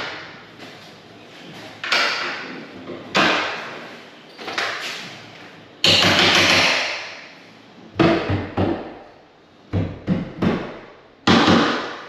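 Hammer striking the steel hinge pins of an interior door: about nine sharp hits, irregularly spaced about a second apart, each ringing briefly.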